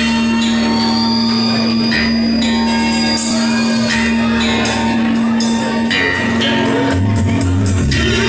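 Instrumental intro of a Malayalam Onam group song: sustained keyboard tones over a bass line and a light percussion beat.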